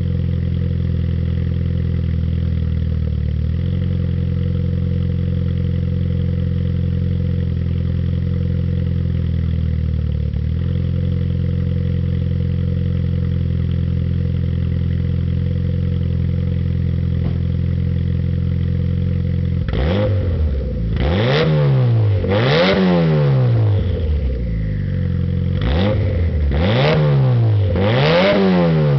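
Turbocharged Suzuki Swift's engine and exhaust idling steadily, then, about two-thirds of the way through, revved in a series of quick throttle blips, the pitch rising and falling roughly once a second.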